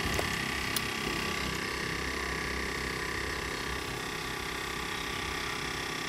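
Electric motor running steadily with a hum and a thin whine of several steady tones. One sharp click a little under a second in.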